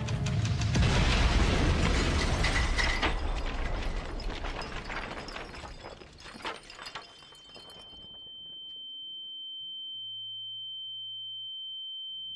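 A bomb explosion: a loud blast with rumbling and crackling that dies away over several seconds. From about seven seconds in, a steady high-pitched ringing tone takes over.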